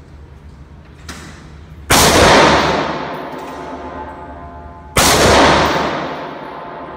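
Two shots from an AR-15 rifle in .223/5.56 with an 18-inch stainless barrel, about three seconds apart. Each rings and echoes for a few seconds off the concrete walls of an indoor range. A fainter sharp crack comes about a second in.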